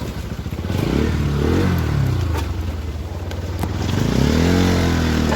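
Motorbike engine revving up under load on a rough off-road climb, pitch rising about a second in, easing off, then climbing again near the end, as the bike is pushed to see whether it has the power to get through without stalling. Scattered clicks and clatter come from the rough track.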